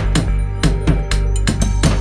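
Background music with a steady drum beat over sustained bass notes.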